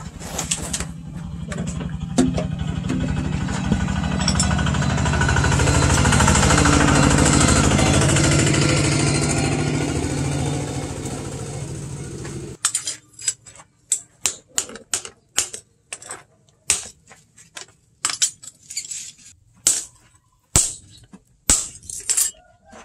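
A loud, steady engine-like mechanical noise swells and fades, then stops suddenly about twelve seconds in. After it comes a run of sharp hand-hammer blows, one or two a second, on red-hot bearing steel lying on an anvil.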